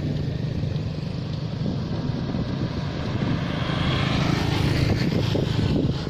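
Motorcycle engine running with a steady low rumble, a little louder about four to five seconds in, then breaking off abruptly near the end.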